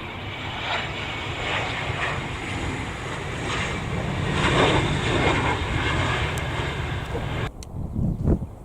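Jet airliner engines running as an aircraft comes in to land, mixed with strong wind rumbling on the microphone. The sound drops away suddenly about seven and a half seconds in.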